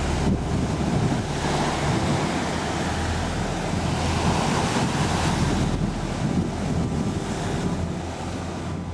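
Small sea waves breaking and washing up on a sandy beach, a steady surf wash, with wind buffeting the microphone.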